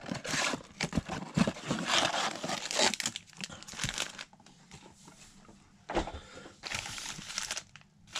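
Cardboard blaster box of trading cards being torn open and its foil-wrapped card packs crinkling as they are pulled out and handled, in dense rustling bursts over the first few seconds, quieter in the middle, then crinkling again near the end.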